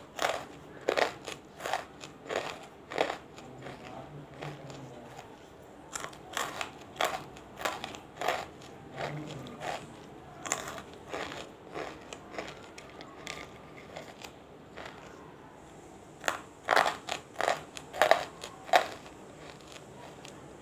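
Close-miked chewing of banslochan (tabasheer, chalky bamboo silica) pieces, wet and dry together: sharp, brittle crunches come in runs, with quieter stretches of a few seconds between them.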